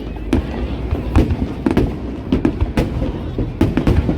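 Fireworks display going off: an irregular run of sharp bangs, about two a second, over a low rumble.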